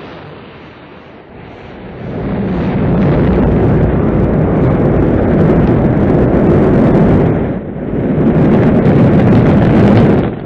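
Rocket engines at liftoff: a deep, loud noise that swells about two seconds in and stays loud. It dips briefly near the end and then builds again.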